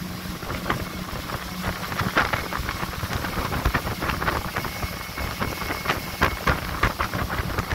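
Pontoon boat running at full throttle, its Mercury 90 hp four-stroke outboard at about 6,000 RPM giving a steady low hum under heavy wind buffeting and crackle on the microphone, with rushing water from the hull and wake.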